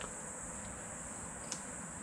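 Steady, high-pitched chirring of insects in an autumn field, with a light click about a second and a half in.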